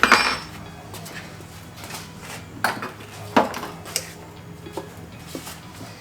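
Metal clinks and knocks from hand tools and engine parts being handled: several separate strikes, the loudest right at the start with a brief ring.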